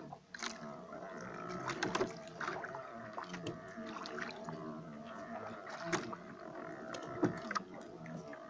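A steady motor hum on a small wooden fishing boat, with scattered sharp knocks and clicks, the loudest about two, six and seven seconds in.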